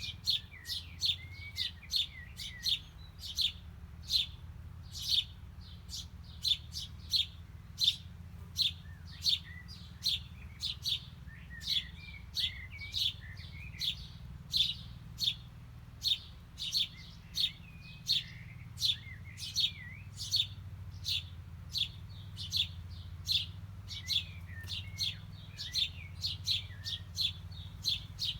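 Small songbirds chirping: short, sharp chirps repeated about twice a second, with softer twittering in between.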